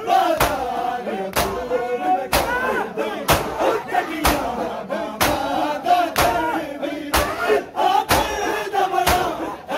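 A crowd of male mourners chanting a noha together while beating their chests (matam) in unison, the hand slaps landing about once a second under the chanting.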